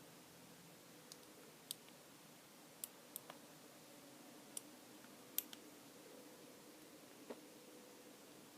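Faint, irregular sharp clicks of a lock pick and tension wrench working the pin stack of a small Abus lockout padlock, about nine clicks a fraction of a second to a second or more apart.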